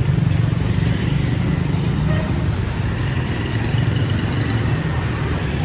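Motorbike and scooter traffic passing on a city street, with engines running under a steady low rumble.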